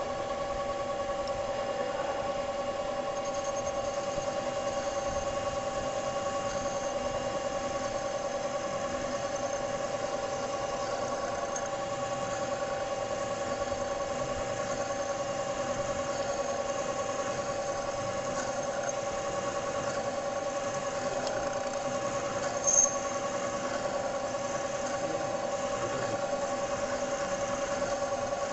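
Metal lathe running with a center-punch blank spinning in its chuck: a steady mechanical hum with several steady whining tones. A brief sharp click about 23 seconds in.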